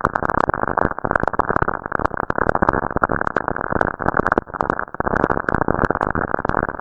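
Dense crackling radio static, cut off above about 2 kHz, with sharp clicks poking through: a recording of a spacecraft's electromagnetic signals converted into sound.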